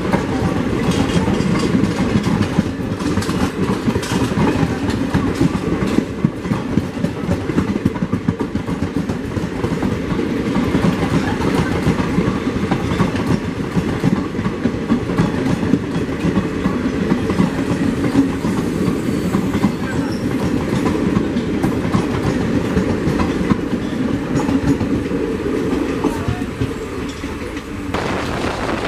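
Passenger train coaches rolling past on the adjacent track, their steel wheels clattering over the rail joints in a steady run of clicks. The sound eases as the last coach goes by near the end.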